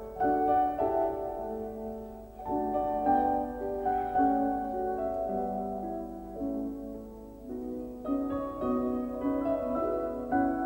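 Instrumental background music: a melody of held notes.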